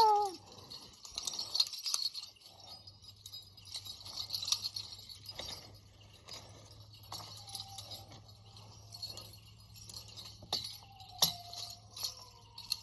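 Creek water trickling and splashing over rocks, a steady bright rush full of small clinking ticks.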